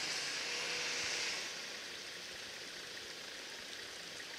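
Steady outdoor hiss with no clear engine or voice in it. It is louder and brighter for about the first second and a half, then settles to an even background noise.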